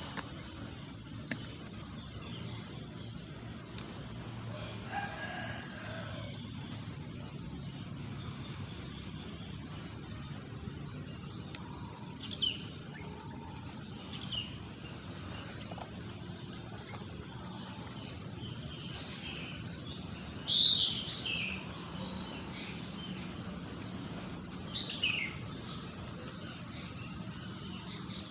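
Wild birds chirping at intervals: short, high chirps and quick glides over a steady outdoor background hum, with the loudest call about twenty seconds in.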